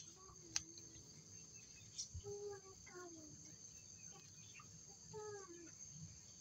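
A few faint snips of hand pruning scissors cutting rose leaves, over a steady high insect drone. A few faint, short low calls sound in the background.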